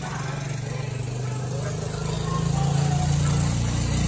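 A motor vehicle's engine running with a steady low hum, growing louder about two seconds in.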